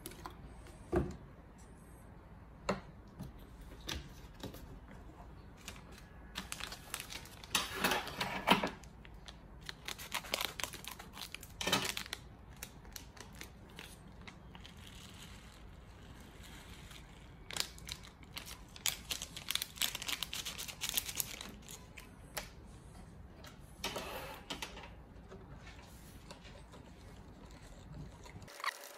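Crinkling and tearing of a small plastic sachet of bait additive being handled and opened, with scattered knocks of objects set down on a wooden table.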